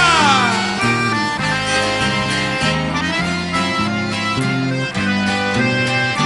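Sertanejo band playing an instrumental passage: accordion over guitar and a bass line that steps to a new note about twice a second.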